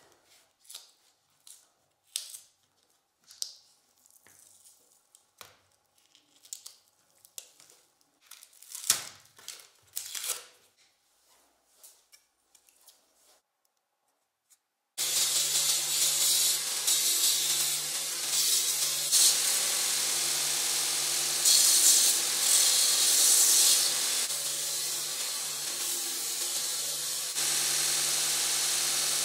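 Scattered clicks and scrapes of a cured epoxy knife blank being worked out of its mould and handled. About halfway in, a small belt sander starts abruptly and runs steadily, its hiss swelling at moments as the epoxy blank is pressed to the belt.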